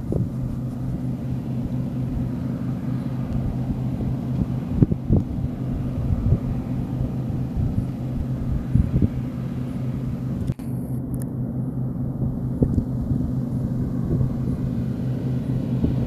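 New Holland TX65 combine harvester's diesel engine and machinery running steadily under load while cutting wheat, a constant low drone.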